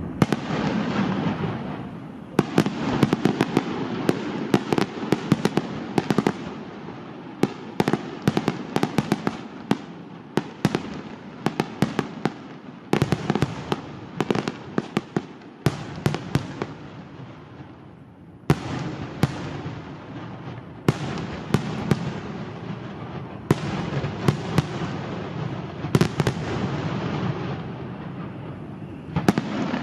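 Aerial fireworks display: a dense, irregular stream of sharp bangs over continuous crackling, easing off briefly past the middle before picking up again.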